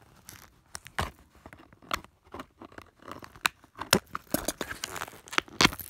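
Hands handling a small plastic doll and its cardboard box: irregular clicks, taps and short rustles, sparse at first and busier in the second half, with one louder click near the end.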